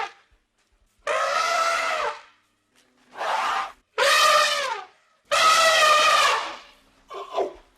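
An animal calling loudly five times, each call a drawn-out, slightly wavering cry lasting up to about a second and a half, with short pauses between.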